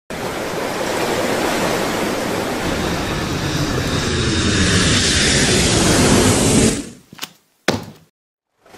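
Sound-effect rush of surf with a passing jet airliner, swelling and then cutting off abruptly, followed by two short sharp hits.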